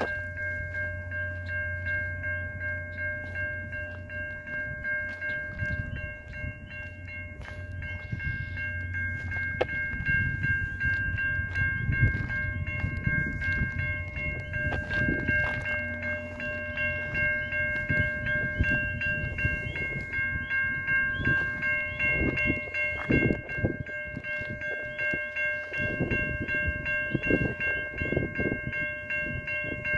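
Railroad grade-crossing warning bell ringing steadily. Under it, a VIA Rail passenger train rumbles through the crossing, and the clunks of its wheels grow stronger in the second half.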